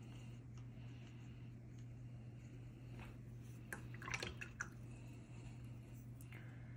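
Faint wet dabbing and scratching of a watercolor brush working paint, with a brief cluster of soft clicks about four seconds in, over a steady low hum.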